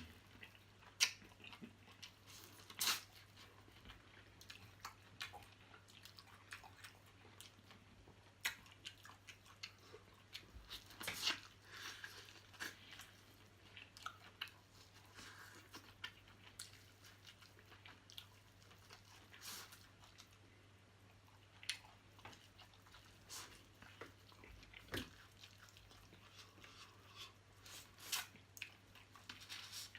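Close-miked eating: chewing and crunching through small blue crabs' shells, with irregular sharp cracks and clicks. A faint steady low hum sits underneath.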